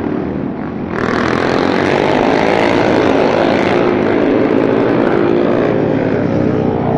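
Racing motorcycle engine at high revs, growing sharply louder about a second in as the bike comes close and passes below, its pitch wavering as the rider works the throttle.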